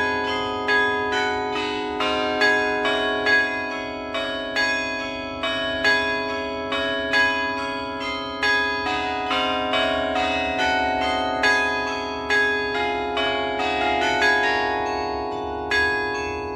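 Carillon bells of the New Ulm Glockenspiel clock tower playing a slow tune, one struck bell about every second, each ringing on under the next.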